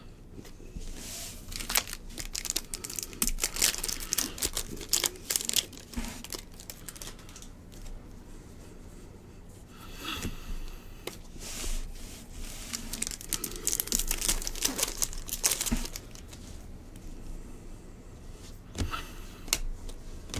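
A stack of Bowman baseball cards being thumbed through by hand: quick papery slides and flicks as each card is pulled off the stack. They come in two spells, one starting about a second in and another about ten seconds in.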